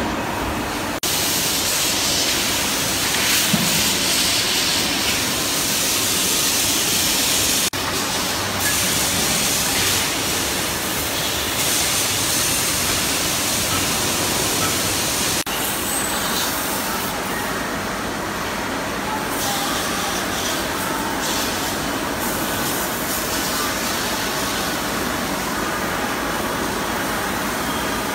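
Steady factory-floor machinery noise, a constant rushing hum that changes abruptly at a few points where the shots are cut.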